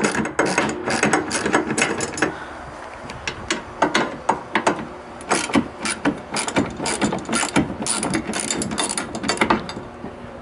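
Ratchet socket wrench clicking in quick runs as it loosens the mounting bolts of a kayak rod-holder T-bar. The clicking stops shortly before the end.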